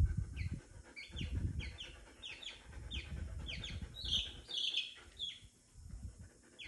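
A small chick peeping over and over, short high falling peeps about three a second, with a brief lull near the end. Low rumbling noise sits underneath.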